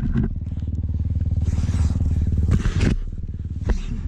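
Yamaha WR250R's single-cylinder four-stroke engine idling steadily while the bike lies where it went down in a crash, with a few scrapes and rustles near the microphone.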